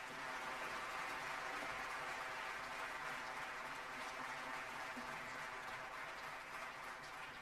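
Concert-hall audience applauding steadily, easing off slightly near the end.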